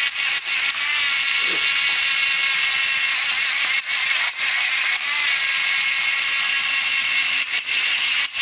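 Small motor of a plush toy rat whirring steadily as it scoots across the tile floor, broken a few times by brief clicks.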